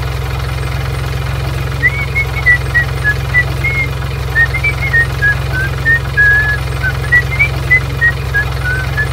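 Steady low truck-engine rumble, as of a truck idling or driving slowly. From about two seconds in, a string of short whistled notes wanders up and down in pitch over it.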